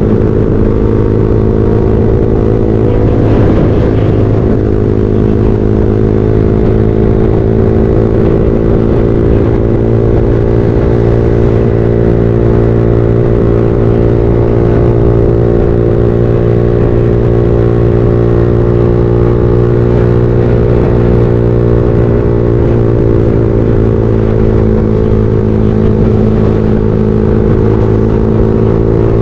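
Motorcycle engine running steadily at cruising speed, heard from the rider's own bike with road and wind rumble underneath. Its pitch dips briefly about three seconds in, holds steady, sags a little later on and climbs again near the end.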